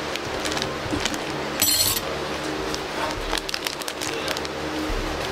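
Scissors snipping through a foil drink-powder sachet, one short crisp cut about a second and a half in, followed by scattered crinkles and ticks of the foil packet being handled and tipped over a plastic tumbler.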